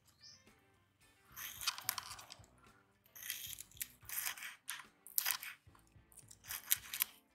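A small knife slicing through green onion stalks on a wooden cutting board: a run of crisp, crunchy cuts in short groups.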